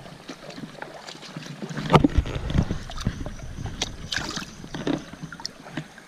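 Creek water splashing and sloshing close to the microphone, with scattered clicks and taps, as a small Australian bass is handled and let back into the water. A low rumble on the microphone comes in about two seconds in.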